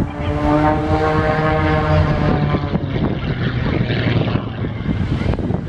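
Propeller engine of an aerobatic plane droning overhead, its pitch sagging slightly as it passes and fading out about two and a half seconds in, over steady outdoor background noise.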